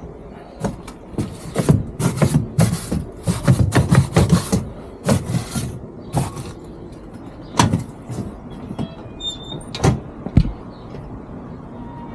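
Footsteps on the metal grating of a boot-cleaning station and the knock of its metal push-gates swinging: a dense run of scraping and knocking for several seconds, then a few single knocks.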